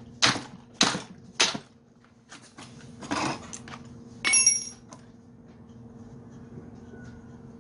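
Spark plug wrench working a spark plug loose on a backpack brush cutter's engine: a run of short scraping clicks about two a second for the first second and a half, then a rustle and, about four seconds in, a metallic clink with a brief ring.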